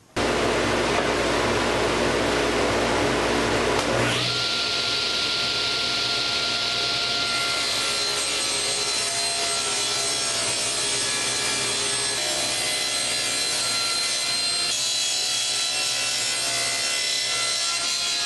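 Table saw ripping a wide wooden board along the fence: the steady noise of the spinning blade cutting wood. About four seconds in the sound shifts and a high steady whine comes in.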